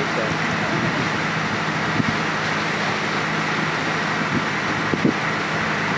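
Passenger launch's engine running steadily under way, mixed with water rushing past the hull. A couple of light knocks come about two and five seconds in.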